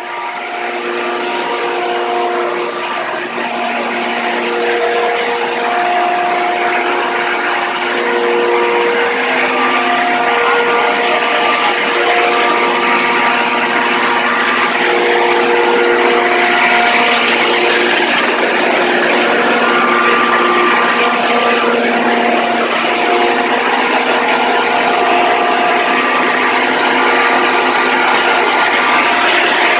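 Paddy threshing machine running steadily, a loud continuous mechanical din that builds gradually over the first several seconds, with steady whining tones that come and go over it.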